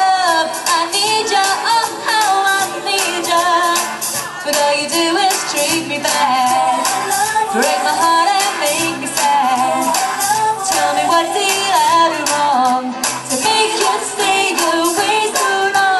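Pop song with a woman singing over a full musical backing.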